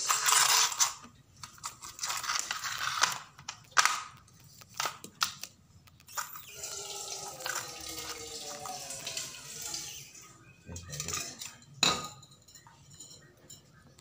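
Refrigerant gas hissing from the charging hose and valve for about the first second, then scattered clicks, knocks and short hisses as the brass fittings, hoses and manifold gauge are handled.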